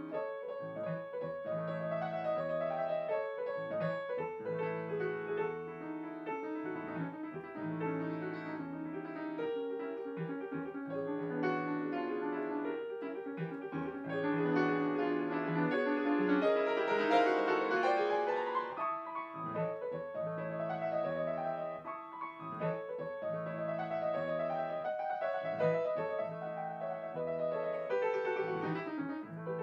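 Grand piano played solo, fast classical passages that swell to their loudest about halfway through in a rapid run up the keyboard.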